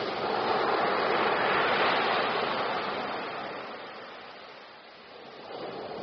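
Ocean waves breaking on a beach. The rush of surf swells over the first two seconds, fades away by about five seconds in as the water washes out, and picks up again near the end.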